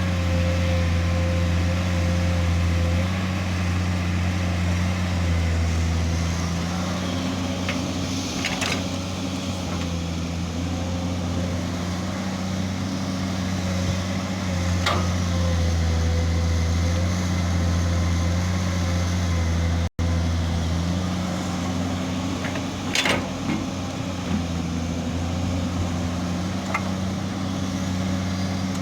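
Komatsu PC200 hydraulic excavator's diesel engine running steadily under working load, its note easing down and back up a little as it works. A few sharp metallic knocks stand out over the hum.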